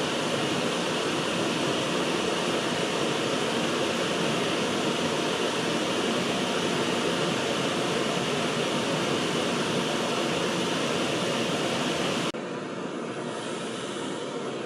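Several gas camping stove burners running at once, a steady hiss of the flames under pots of water. About twelve seconds in the sound cuts abruptly to a slightly quieter, duller hiss of the same kind.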